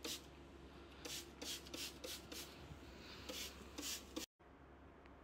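Plastic trigger spray bottle spraying a wooden shelf: a run of short hissing squirts, each with a faint click of the trigger, about eight in all with a pause about two and a half seconds in. The sound cuts out abruptly about four seconds in.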